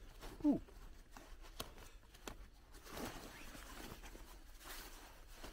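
Faint rustling and handling of a Belgian Army surplus rucksack's top lid pocket, with a few small clicks of its fittings. A short falling grunt about half a second in.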